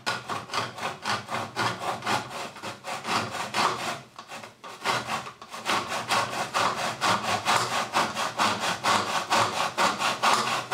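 Tenon saw cutting a 45-degree mitre through UPVC quadrant beading in a plastic mitre block, in quick, even back-and-forth strokes of about three a second, with a short pause about four seconds in.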